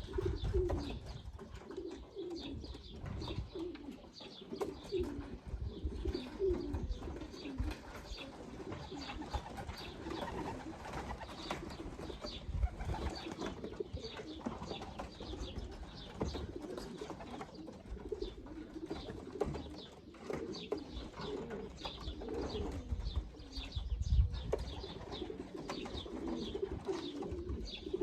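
Many racing pigeons cooing at once, the coos overlapping steadily, with higher chirps above them and a few low rumbles.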